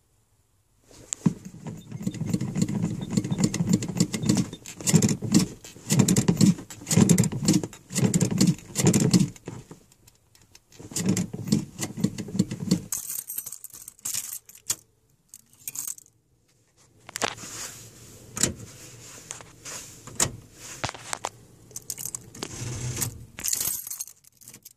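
1978 Chevrolet C10 engine on a cold start, turning over and sputtering in bursts while the gas pedal is pumped, with pauses about halfway and light rattling and clicks between the bursts.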